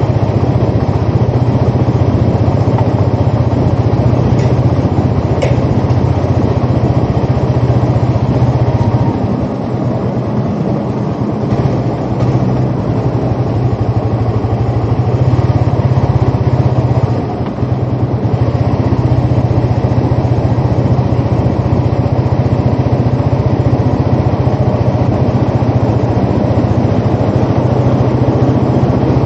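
Sport motorcycle engine running at a steady low pitch while riding slowly. About nine seconds in the sound drops for a few seconds as the throttle eases off, then picks up again, with another short dip a little later.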